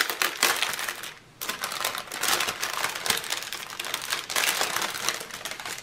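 Small clear plastic bags of diamond-painting drills crinkling and rustling as they are handled and opened, with a short pause about a second in.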